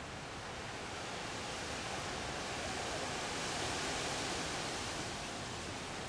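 Wind gusting through leafy trees, a rushing hiss that swells to its loudest about four seconds in and then eases.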